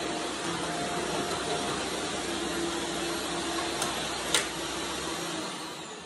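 Shark Lift-Away vacuum running steadily as it is pushed under a chair, with a sharp knock about four seconds in. Near the end the motor is switched off and its whine falls away as it spins down.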